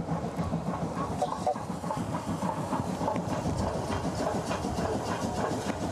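JNR Class 8620 steam locomotive No. 58654 running past with its coaches, wheels clattering over the rail joints.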